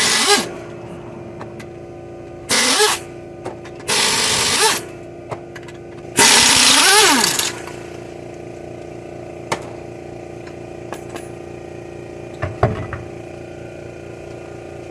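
A power tool run in four short bursts, each spinning up and winding down, as the wheel bolts are undone. It is followed by a few light clicks and a knock.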